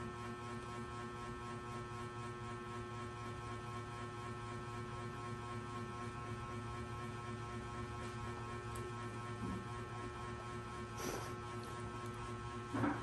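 Low, steady electrical hum with many fixed overtones, with a brief faint noise about eleven seconds in.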